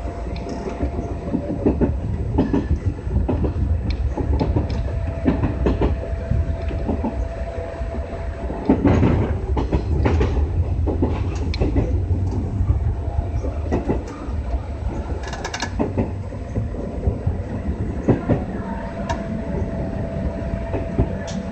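JR West 201 series electric commuter train running, heard from the driver's cab: a continuous low rumble with the wheels clacking over rail joints and a steady hum. It grows louder about nine seconds in as it passes another train alongside.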